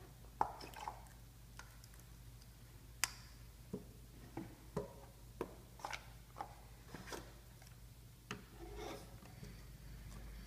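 Hands handling a Sphero BB-8 toy and its cardboard packaging: scattered light clicks and taps of plastic and card, with a short rustle about nine seconds in.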